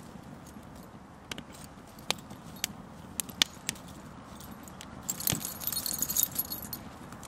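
Metal tags on a small dog's collar jingling and clinking as it plays with a pinecone on the ground. Scattered single clicks come first, then a burst of rapid jingling about five seconds in.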